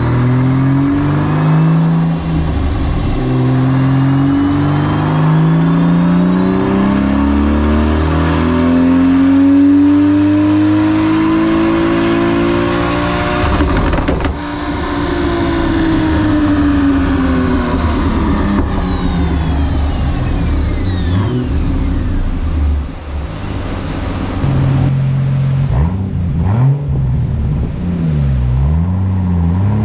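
Toyota Supra MK4's 2JZ twin-turbo straight-six running on a rolling-road dyno: the revs climb steadily for about fourteen seconds, then it lifts off and winds down over several seconds. A few quick throttle blips follow near the end.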